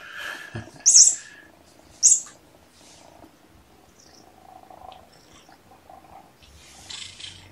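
Kitten purring while being petted, a faint low rumble, with two short, loud hissing noises about a second in and again a second later.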